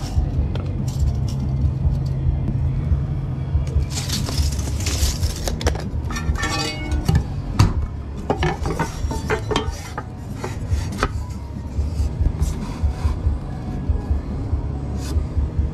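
Boards and metal measuring tools being handled: scattered clicks, knocks and clatter of scrap lumber, a tape measure and a metal speed square. There is a short burst of rustling noise about four seconds in and a quick rattling run about six seconds in, over a steady low background.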